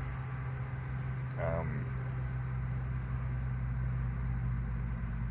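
Crickets trilling as a steady high whine over a louder, steady low hum, with a brief murmur from a man's voice about a second and a half in.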